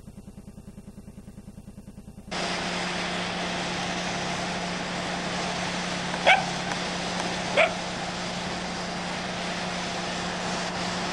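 A dog barks twice, about a second and a half apart, over a steady low hum and hiss from the recording. About two seconds in, a faint rapid fluttering gives way suddenly to the louder hum.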